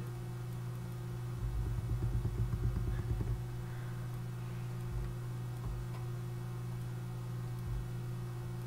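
Steady low electrical hum from a desktop recording setup. A low fluttering rumble runs from about one and a half to three and a half seconds in, and a few faint mouse clicks come later.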